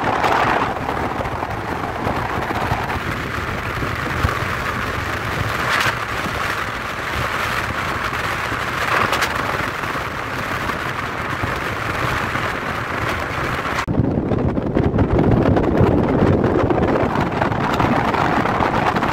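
Wind rushing over the microphone and road noise from a moving car, heard through the open window. About fourteen seconds in, the high hiss dulls and a lower rumble takes over.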